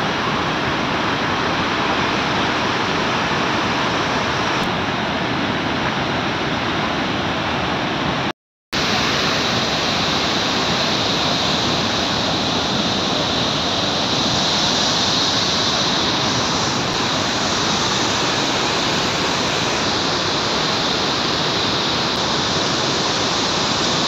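Waterfall in spate, its muddy, foaming torrent rushing with a loud, steady roar of water. About eight seconds in, the sound cuts out for half a second and then resumes.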